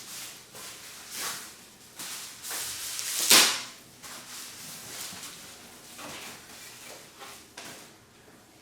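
Handling noises of unpacking chair parts from their box and wrapping: short rustles and knocks, the loudest a sharp clatter a little over three seconds in.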